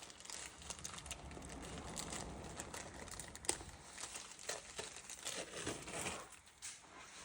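Plastic packaging crinkling and rustling with irregular light clicks, one sharper click about three and a half seconds in, as a new timing chain is handled out of its wrapping.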